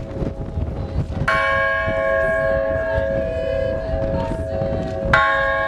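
A church bell on a low stand struck twice with a mallet, about four seconds apart. Each strike rings on in a long, steady hum of several tones, with the ringing of an earlier strike still sounding at the start.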